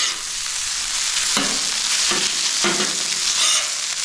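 Jasmine rice and egg sizzling on a hot flat-top griddle, with a metal spatula scraping across the steel in several short strokes as the rice is stirred and turned.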